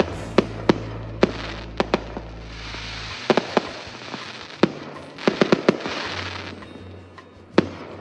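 Aerial fireworks going off: a string of sharp bangs at irregular intervals, bunched around the middle, with a hissing crackle between them and one last bang near the end.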